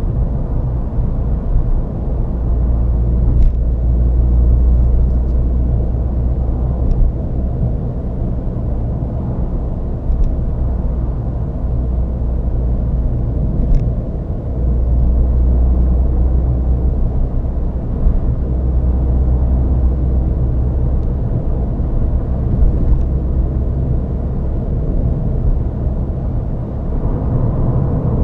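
Ford Fiesta ST driving along the road: a steady low rumble of engine, tyres and wind that swells louder twice for a few seconds.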